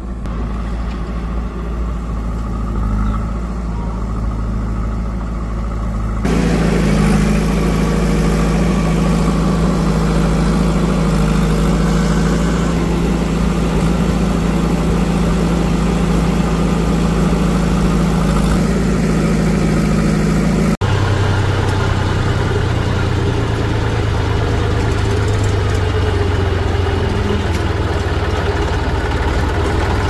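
Diesel engine of heavy machinery running steadily. Its pitch and loudness change abruptly about six seconds in and again about two-thirds of the way through.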